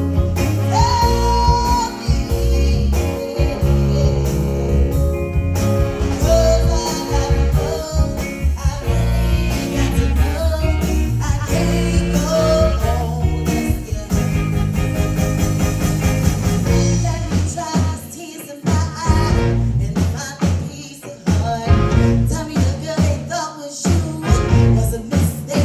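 Live band playing a rock number with singing. About two-thirds of the way through, the bass drops out and the playing turns sparser and choppier.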